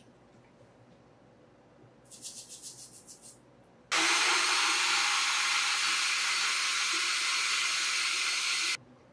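A short run of quick rattling clicks, then a Nutribullet blender motor starts and runs steadily for about five seconds, blending peanuts, dried chillies and water into a purée, and cuts off sharply near the end.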